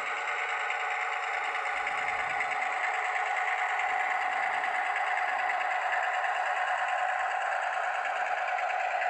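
ESU LokSound sound decoder in an HO-scale GP15-1 model locomotive playing a diesel engine running steadily under power at a low throttle notch, heard thin and tinny through the model's small speaker. The sound grows slightly louder as the model comes closer.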